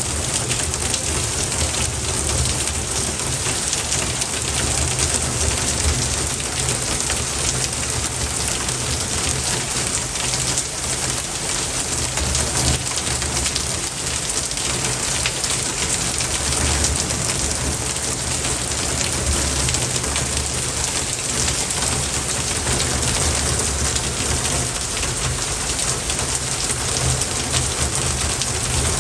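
Steady, even rushing hiss that sounds like heavy rain, with no tune, beat or voice.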